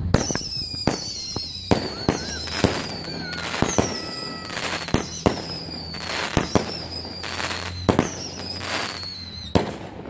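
Showtime 'Magic Crackles' firework cake firing: sharp shots repeat every second or so, each followed by short bursts of crackling stars. A thin high tone slides slowly downward through it.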